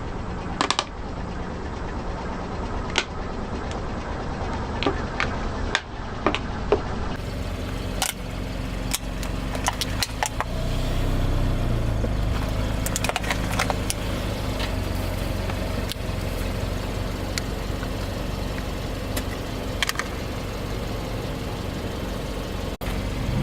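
A car engine running slowly, with repeated sharp cracks and crunches as its tyres crush brittle objects.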